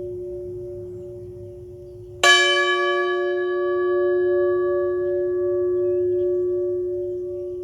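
A bell struck once about two seconds in, its bright overtones fading fast while the deep tone rings on with a slow waver. The previous stroke is still ringing out before the strike.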